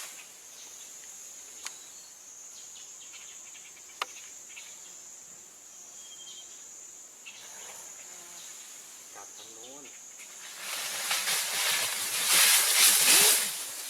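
A steady, high, thin insect drone, like cicadas or crickets, with a couple of faint clicks. Near the end a much louder rushing noise rises over it.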